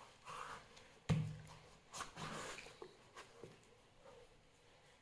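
Kitchen knife cutting through a raw green papaya, with a sharp knock of the blade against the leaf-covered stone floor about a second in and a few fainter cutting and handling sounds after it.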